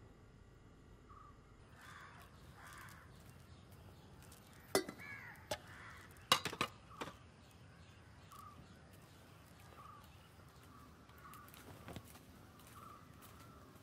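Faint bird calls repeating every second or so, with a cluster of sharp knocks and clicks about five to seven seconds in and another knock near the end.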